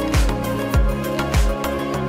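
Background music with a steady beat: a deep drum hit that drops in pitch about every 0.6 seconds under sustained notes, the drum stopping near the end.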